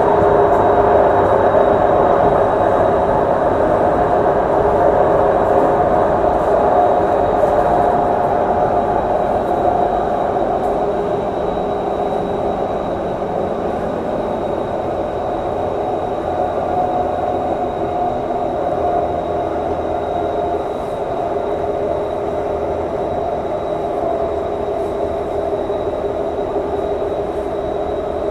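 Inside a Singapore MRT train carriage while the train is running: a steady rumble of wheels on the rails mixed with the train's motor hum, and a faint steady high whine above it. It grows gradually a little quieter over the stretch.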